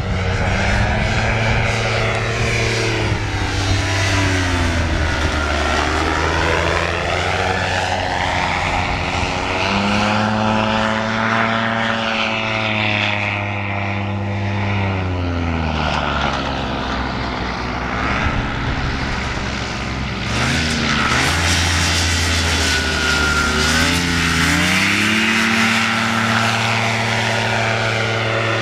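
Simonini Victor 100 hp engine and propeller of an AM-FIB amphibious flex-wing trike in flight, running steadily with its pitch sweeping down and up several times as the craft banks and passes by.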